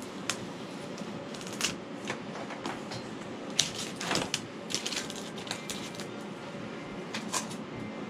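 Cut pieces of foam board being worked loose and pulled out by hand: an irregular string of sharp crackles and clicks, busiest around the middle, over a steady background hum.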